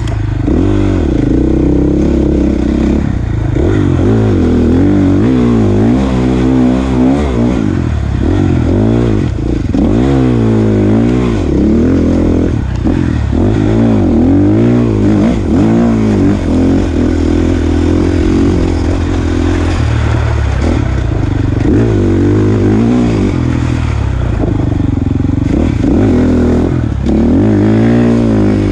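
Dirt bike engine being ridden along a trail, revving up and falling back over and over as the throttle is worked and gears change, its pitch rising and dropping every second or two.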